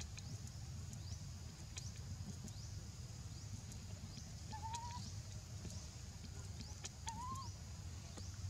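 Baby macaque giving two short, wavering, whistle-like calls, about four and a half and seven seconds in, over a steady high drone and low rumble.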